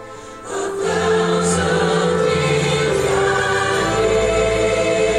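Choral music with sustained voices playing through a car audio system, heard inside the car's cabin. It swells up about half a second in, and deep bass joins a little past the middle.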